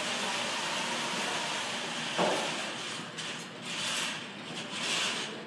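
FRC competition robot's electric drive motors and gearboxes running as it drives over carpet, a steady whirring hum with a sharp knock about two seconds in. From about three seconds on the motor noise comes in several short surges as the throttle is worked.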